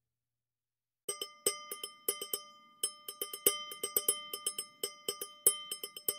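Background music: after about a second of silence, a quick, irregular run of small bell or chime strikes over held ringing tones.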